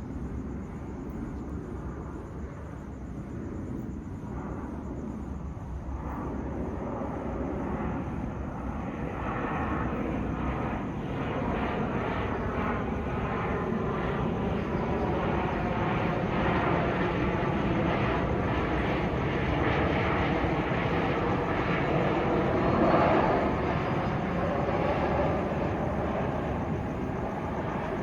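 Boeing 737-700 airliner flying over on its two CFM56-7B turbofan engines: a steady rushing jet noise. It builds from about six seconds in and is loudest a few seconds before the end, with a sweeping, phasing quality as the plane passes.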